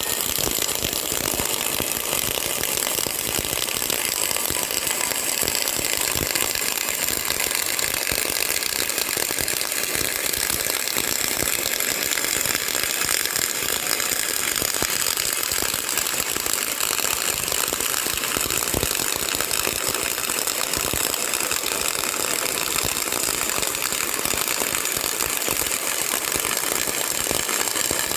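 CO2 (MIG/MAG) welding arc running steadily, a dense fast crackle with no break.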